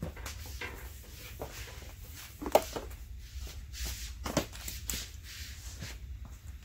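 Footsteps and shuffling with scattered knocks and clunks of handling; the loudest is a single sharp knock about two and a half seconds in.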